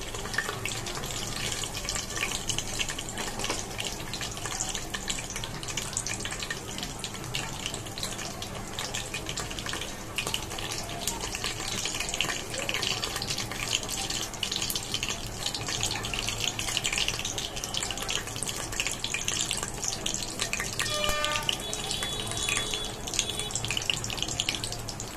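Whole spices (cumin seeds, bay leaves, cinnamon, cloves, black peppercorns and black cardamom) sizzling and crackling steadily in hot oil in a pan. This is the tempering stage of a pulao, before the onion goes in.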